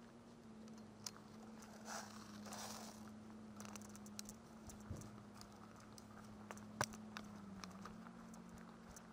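Faint footsteps and rustling of clothing and gear while walking a forest path, over a steady low hum. A few sharp ticks stand out, the loudest about two thirds of the way through.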